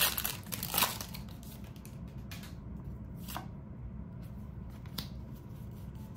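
Foil wrapper of a Pokémon card booster pack crinkling and tearing open in the first second, then the cards being handled, with a few soft swishes and flicks.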